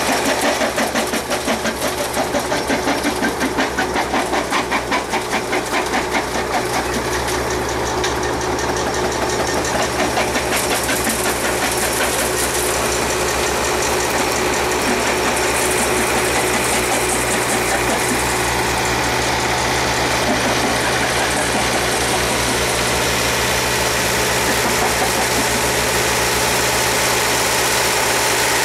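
Vintage Lokomo jaw rock crusher plant running, driven by its Caterpillar diesel engine. The sound has a strong pulsing beat for about the first six seconds, then settles into a steadier drone.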